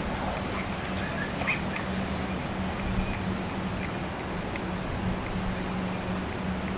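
Aerial tramway running: a steady low hum over a constant rushing noise, with a few faint short chirps.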